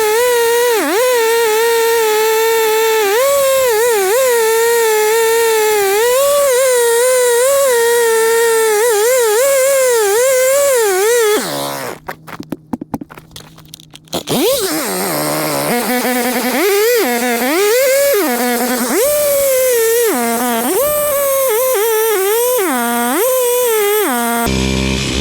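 Two-stroke chainsaw running at high revs while cutting a stump, its pitch dipping again and again as the chain bites into the wood. It goes quiet for a couple of seconds about halfway, then runs and cuts again.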